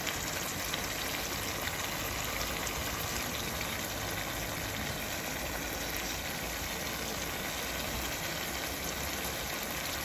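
Chilli chicken with capsicum and onion frying in a metal kadai on a gas stove: a steady sizzle with a low rumble underneath.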